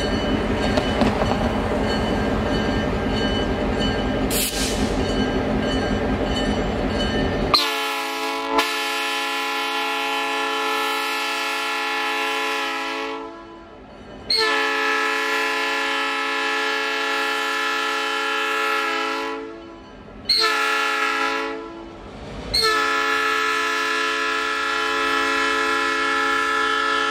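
GP38-2 diesel locomotives with EMD 16-cylinder 645 engines rumbling at low speed, then the lead unit's multi-chime air horn sounding the grade-crossing signal: two long blasts, one short and a final long one.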